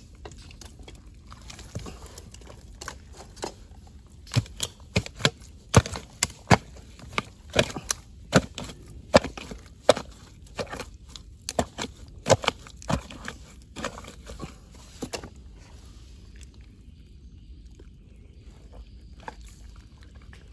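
Metal crab hook being jabbed and worked into a crab burrow in mangrove mud: an irregular run of sharp clicks and knocks, about one or two a second, starting about two seconds in and stopping about fifteen seconds in.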